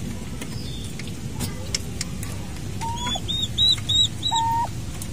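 Newly hatched turkey poults peeping: a quick run of about six short, high peeps a few seconds in. Around the run come two short, lower, level calls from the turkey hen, over a steady low background rumble.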